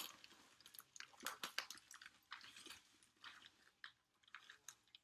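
Faint, irregular crackling and scraping of a thick cardboard shipping box being handled and worked open by hand, thinning out near the end.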